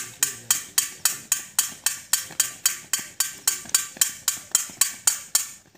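Sharp, evenly spaced clicks repeating about four times a second, in a ticking rhythm that cuts off suddenly near the end; the strict regularity points to a ticking sound effect added over the footage.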